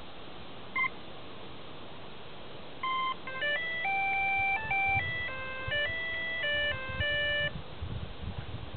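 Electronic beeps from an electric RC plane's setup as it is powered and armed: one short beep about a second in, then from about three seconds a run of stepped beep tones at changing pitches lasting about four and a half seconds. A few low handling thumps follow near the end.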